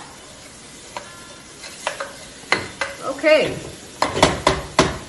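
Wooden spatula stirring chicken and masala in an aluminium pressure cooker, scraping and knocking against the pot: a few scattered knocks, then a quick run of them near the end, over a soft sizzle.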